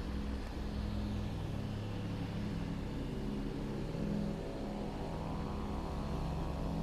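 Steady engine drone with a sustained low hum, most likely the Airbus A380's jet engines running at low power at the gate.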